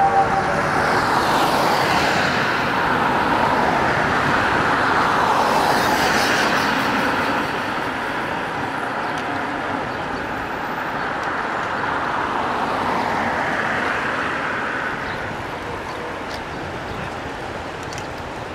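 A pack of road bicycles riding past on a paved street: the whirr of tyres and freewheel hubs, loudest for the first several seconds, then dropping away, with a smaller swell as more riders pass later.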